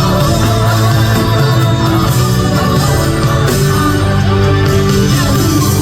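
Loud instrumental passage of a live pop-rock song playing over concert speakers, without vocals.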